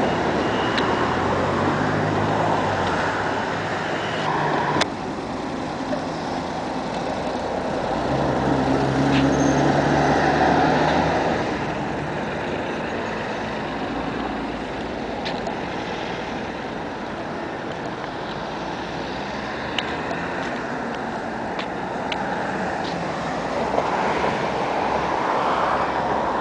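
Road traffic: cars passing on the road beside the path, with engine hum that swells as a vehicle goes by about ten seconds in.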